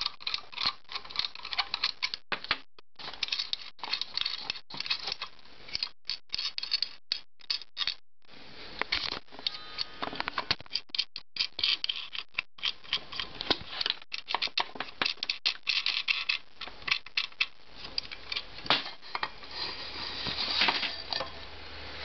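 Irregular clicks, taps and scrapes of hands handling and working on an ITT LGH-210 oilless air compressor that is not running, metal parts and its cord knocking and rubbing as it is moved and turned over.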